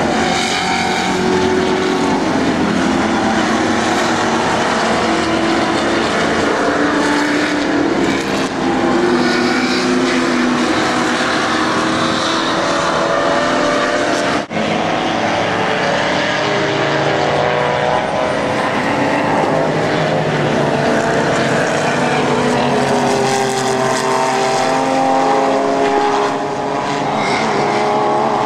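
Several race car engines running hard as a pack of cars passes on the track, overlapping engine notes rising and falling with throttle and gear changes. The sound breaks off briefly about halfway through.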